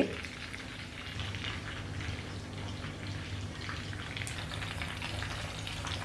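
Mutton koftas frying in oil in a kadai on a low flame: a steady sizzle with scattered small crackles.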